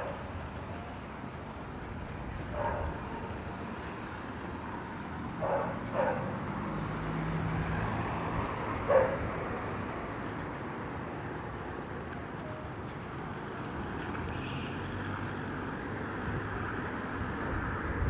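A dog barking about five times over the first nine seconds, the loudest bark about nine seconds in, over steady street noise with a vehicle passing.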